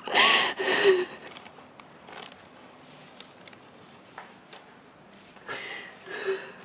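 A woman's short, breathy vocal sounds, emotional sobs or gasps: two loud ones close together at the start and two quieter ones near the end, with quiet room tone between.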